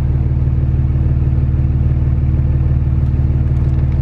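Dodge Ram's Cummins turbo-diesel inline-six idling steadily.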